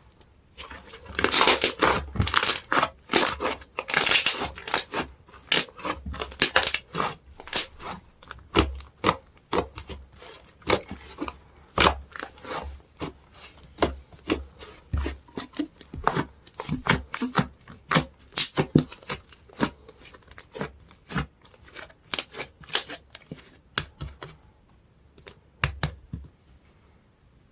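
Slime being squeezed, stretched and pulled apart by hand: a dense run of small pops, clicks and peeling sounds, busiest in the first few seconds.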